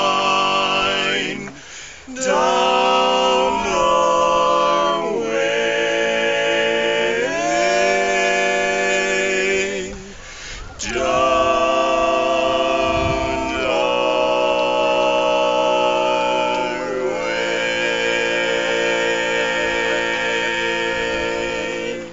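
Barbershop quartet of four men singing a cappella in close harmony, holding long chords that shift in steps, with short breaks for breath about 2 and 10 seconds in. The final chord is held for about five seconds and cut off near the end.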